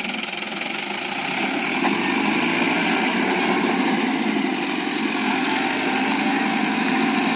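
Ace tractor's diesel engine running steadily, getting louder about a second and a half in.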